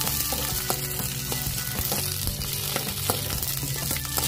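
Cashews and raisins sizzling in hot ghee in an iron kadai as a spoon stirs them, a steady frying hiss with scattered small clicks.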